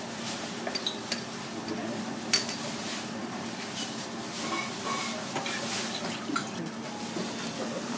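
Dishes and utensils clinking and knocking now and then at a sushi counter, with one sharp clink about two and a half seconds in, over a steady low hum.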